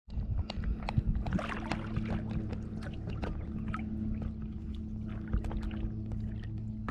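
Lake water lapping and splashing against the nose of an inflatable stand-up paddleboard as it glides, a string of small irregular slaps and drips, over a steady low hum.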